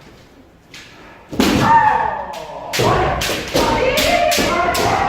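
Kendo sparring: a loud shouted kiai starts about a second in, followed by a quick run of sharp cracks and thuds from bamboo shinai strikes and stamping feet, with more shouting between them.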